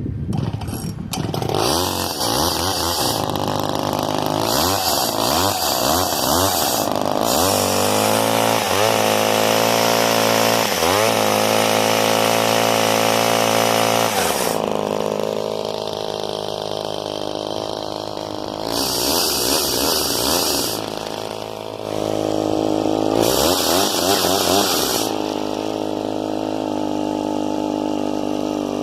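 Old Craftsman two-stroke chainsaw running just after a cold start, its throttle blipped up and down rapidly, then held at high revs. It drops to a lower speed and is revved up twice more in short bursts.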